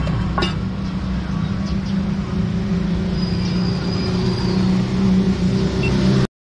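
Steady engine hum and road traffic noise, with a sharp clink about half a second in; the sound cuts off abruptly just before the end.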